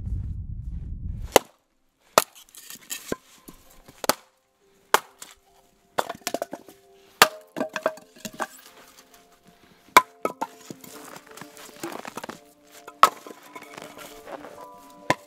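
Axe splitting birch firewood on a chopping block: about a dozen sharp cracks at uneven intervals as the blade strikes and the logs split, with split pieces knocking together. It opens with a low steady rumble that cuts off about a second and a half in.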